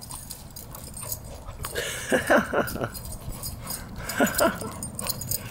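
Dog whining during rough play: a cluster of short whines falling in pitch about two seconds in, and another brief one about four seconds in.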